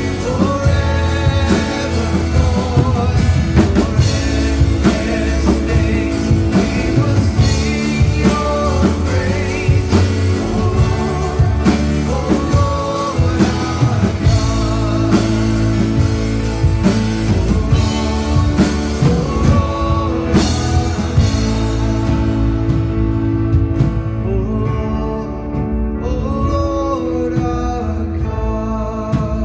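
Live worship band playing: a woman singing lead over drum kit, guitars and keyboards. After about twenty seconds the drums thin out and the playing grows softer.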